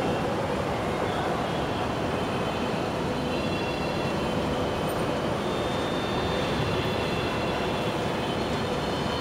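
Steady mechanical running noise: an even rumble and hiss with faint thin whining tones above it, unchanging throughout.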